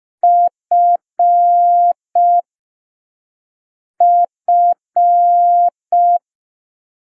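Morse code letter F, dit-dit-dah-dit, keyed twice as a steady single-pitch beep tone, the two groups a second and a half apart.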